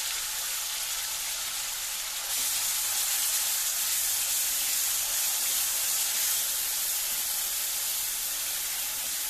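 Freshly added chopped onions frying in hot oil with cumin seeds in a kadhai: a steady sizzle, a little louder from about two seconds in.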